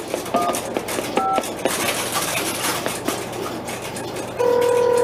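Two short touch-tone (DTMF) beeps as keys are pressed on a key telephone wired to a 1971 Fujitsu crossbar PBX, followed by a couple of seconds of clicking and clatter, then a steady call-progress tone from the switch starting about four and a half seconds in.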